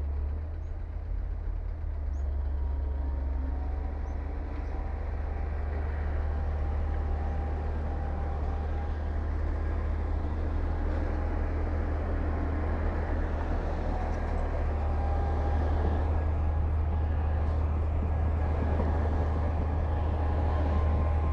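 Heavy diesel earthmoving machinery running with a steady deep rumble, growing slightly louder toward the end.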